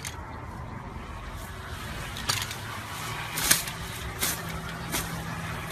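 Slime being pressed and pulled by hand, giving a few sharp sticky crackles and pops over a steady low hum.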